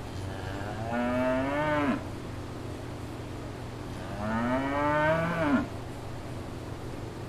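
A cow mooing twice, two long calls each rising slightly in pitch and dropping off at the end, over a steady low hum.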